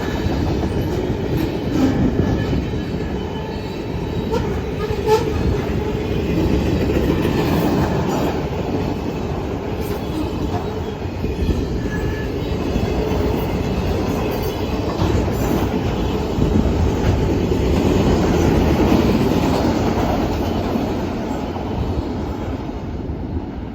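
Norfolk Southern manifest freight train rolling past close by: a loud, steady rumble of steel wheels on the rails, with scattered rail-joint clicks.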